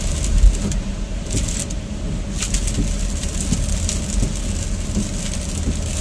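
Steady road noise inside a moving car at highway speed: a low tyre and engine rumble with a hiss from the wet pavement and faint crackles of spray.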